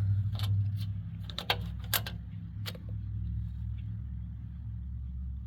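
Metal parts on a small engine clinking and tapping about five times in the first three seconds while being handled, over a steady low hum.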